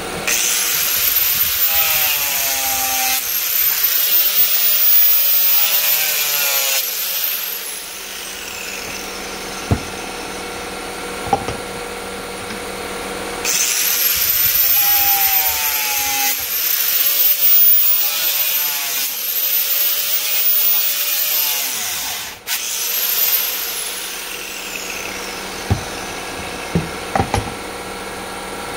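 Angle grinder with a cut-off disc trimming the notch of a 3-inch PVC pipe held in a vise, run twice. Each time the motor spins up with a high whine, cuts with a dense grinding noise for several seconds as the disc bites into the plastic, then winds down with a falling whine. A few short knocks come between the runs.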